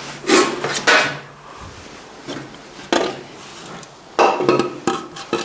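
Metal valve cover of a Ford 800 tractor engine clanking against the head as it is set down and shifted for fit: a few separate knocks, each with a short metallic ring, and a quicker cluster of clanks near the end.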